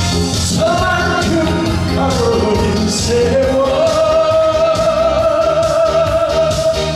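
A man singing a Korean trot song into a microphone over a backing track with a steady beat, holding one long note through the second half.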